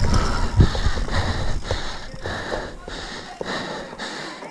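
A mountain-bike rider breathing hard, short rasping breaths a little under two a second, over a low rumble of riding that fades away as the bike slows.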